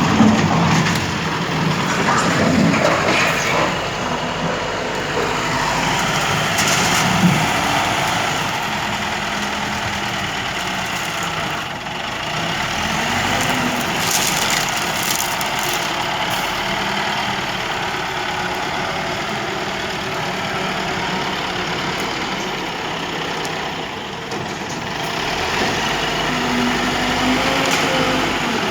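A heavy engine running steadily at idle, like a truck on a building site, with a few short knocks.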